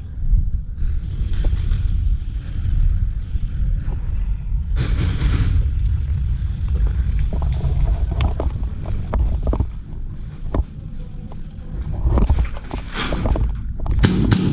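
Steady low rumble of wind and handling noise on a moving camera's microphone. Scattered sharp clicks come in the second half, and short bursts of hiss come about five seconds in and again near the end.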